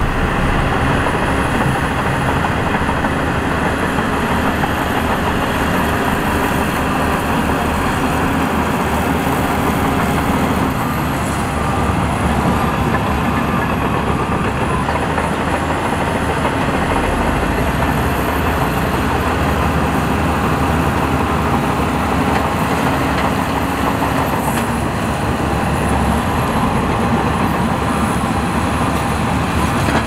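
Heavy diesel earthmoving machinery running steadily under load, a dense, loud engine noise with a thin high whine that rises and falls.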